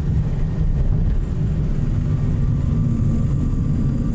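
Cessna 421C's twin geared, turbocharged Continental piston engines and propellers running, heard inside the cockpit as a steady low rumble while the aircraft rolls on the runway. Faint steady tones join the rumble about halfway through.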